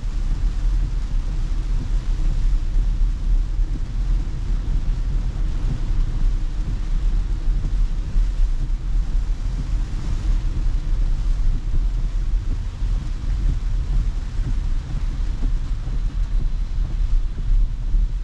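Steady low rumble of tyres on a wet road with a hiss of rain on the glass, heard inside the cabin of a Tesla electric car driving through a rainstorm.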